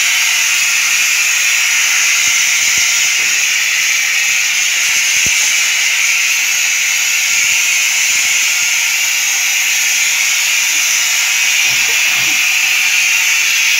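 Steam cleaner's spray gun, with a detergent bottle fitted, jetting steam in one loud, steady hiss without a break.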